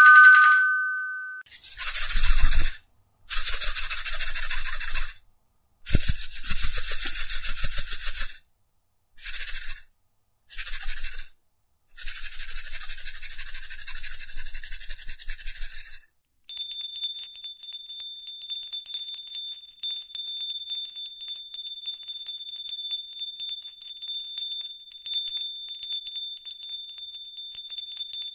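A string of sound effects: a two-note chime fading out at the start, then several separate bursts of shaken rattling a few seconds each. A little past the middle, a high bell begins ringing rapidly and without a break.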